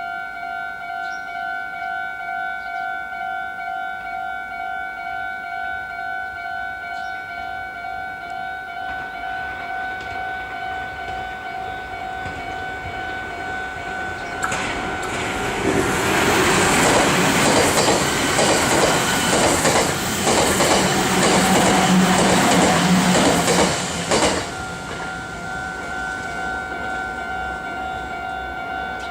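Japanese level-crossing alarm ringing in a steady repeating electronic ding. About halfway through, a Meitetsu electric train passes over the crossing for about ten seconds, its wheels clicking rhythmically over the rail joints and drowning out the bell, which is heard again once the train has gone.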